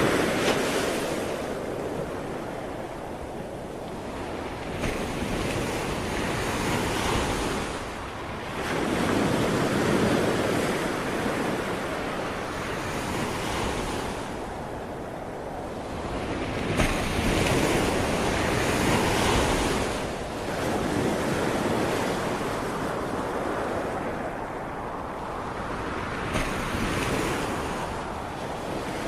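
Ocean waves breaking and washing up on the shore, the surf swelling and ebbing in slow surges about every eight seconds, with some wind noise.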